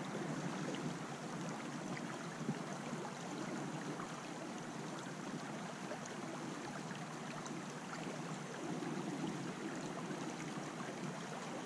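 Steady rush of a shallow creek flowing over rocks, with a few faint ticks and one small click about two and a half seconds in.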